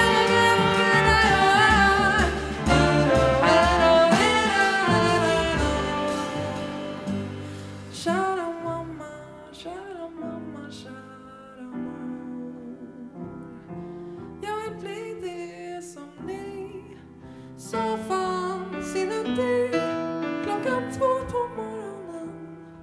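Live jazz band with voice, trumpet, trombone, piano, double bass and drums: a loud full-ensemble passage with wordless singing and brass. It falls away after about six seconds into a quieter, sparser stretch of held notes.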